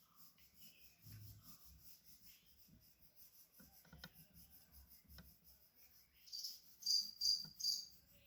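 Pencil scratching on paper in short strokes, drawing a dog's fur: faint light strokes at first, then four quicker, louder strokes near the end.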